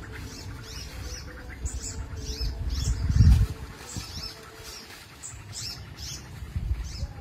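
Small birds chirping repeatedly: short, high chirps that drop in pitch, several a second. A low rumbling thump about three seconds in is the loudest sound.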